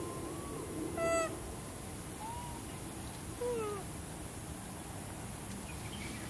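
Macaques giving short, high coo calls: a loud brief call about a second in, then two more, the last one falling in pitch, over steady outdoor background hiss.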